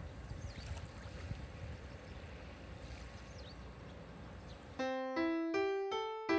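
Sea waves washing on a beach, with wind on the microphone. Nearly five seconds in, electric piano music starts, with about two or three notes a second.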